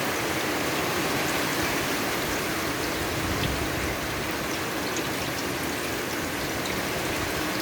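Steady rain falling: an even, continuous hiss with scattered individual drops ticking through it.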